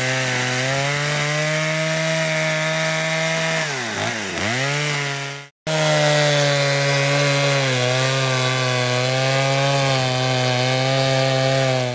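Two-stroke chainsaw running at full throttle while its bar cuts through thick pond ice to open a fishing hole. The revs sag and pick up again about four seconds in, the sound breaks off for an instant just past halfway, then it holds steady until it stops at the end.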